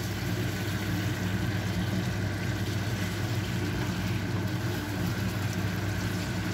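Steady low machine hum, with pork, potatoes and carrots sizzling in sauce in a nonstick frying pan as a wooden spatula stirs them.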